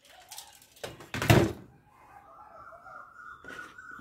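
A plastic toy assault rifle set down on a table with one short thump about a second in.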